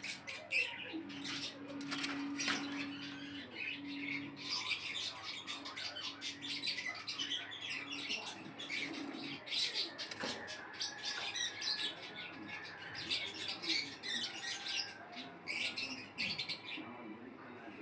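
Many small cage birds chirping and twittering together, a dense stream of short high-pitched chirps.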